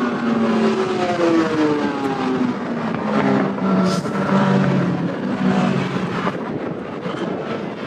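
Car engine revving, its pitch rising and falling over and over.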